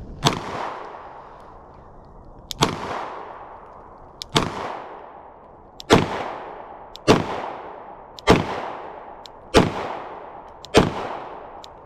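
Springfield Echelon 9mm pistol fired in a slow string, about nine shots roughly one every second or two, each loud crack followed by an echoing tail.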